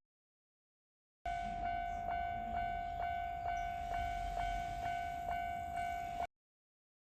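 Japanese railway level-crossing warning bell ringing: an electronic two-tone ding repeating rapidly and evenly. It cuts in abruptly about a second in and cuts off abruptly near the end.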